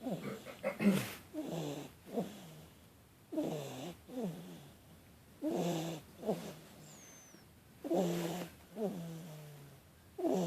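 Snoring in a steady rhythm, about one breath every two and a half seconds. Each breath is a rough snore followed by a shorter sound that falls in pitch.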